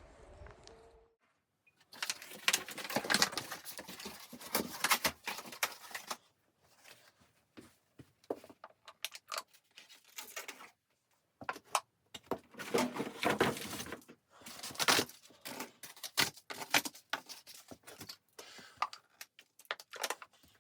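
Close-up handling noise: irregular bursts of rustling, crinkling and small clicks and knocks, with brief pauses between bursts.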